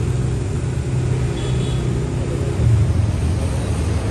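Kaisar Ruby V-250 cruiser motorcycle's engine running with a steady low rumble as it rides slowly across the forecourt, briefly louder a little before three seconds in.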